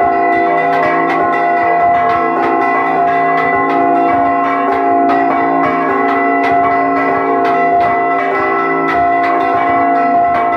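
A repique of several bronze church bells rung by hand, heard up close in the bell tower: rapid, overlapping clapper strikes on large and small bells, each one still ringing as the next lands, in a continuous peal.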